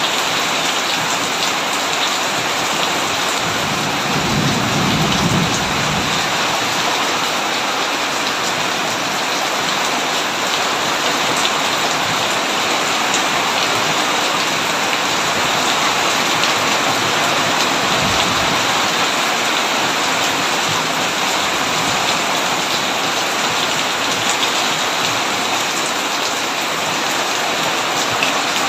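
Heavy rain falling steadily on a tin roof, with a low rumble of thunder about four to six seconds in and a fainter one near eighteen seconds.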